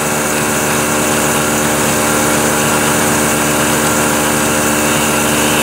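Vertical milling machine running at a steady speed, its motor and spindle giving an even hum with a hiss over it.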